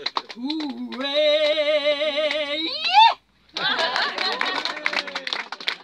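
Soprano voice holding a note with wide vibrato over a lower held tone, then sliding up to a loud high final note about three seconds in. After a short break, audience applause with a few voices.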